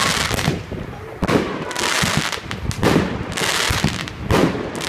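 "Armageddon" multi-shot fireworks battery firing, a sharp bang about once a second, each followed by a reverberant crackling tail.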